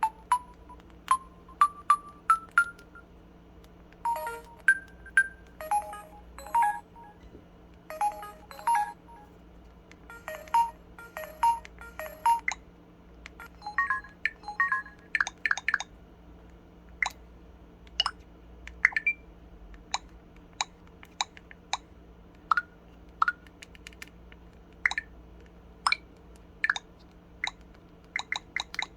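Samsung SPH-W8300 'Magic Hole' phone sound effects as its keys are pressed: short electronic beeps, starting with a rising run of notes, then quick multi-note chirps, and in the second half single beeps about once a second.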